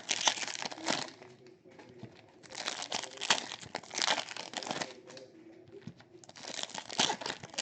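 Foil trading-card pack wrappers being torn open and crinkled by hand, in three bouts of crackling a couple of seconds apart.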